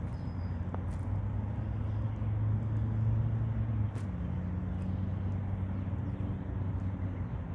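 Low, steady engine hum, loudest around three seconds in, its tone shifting about four seconds in.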